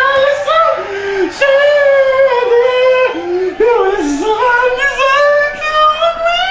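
A high voice singing loud, long held notes with no accompaniment, the pitch sliding and wavering from note to note.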